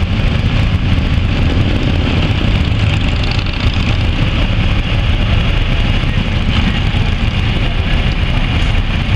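A pack of motorcycles, largely Harley-Davidson V-twin cruisers, running together at low speed as they ride off in procession: a loud, steady, low engine rumble.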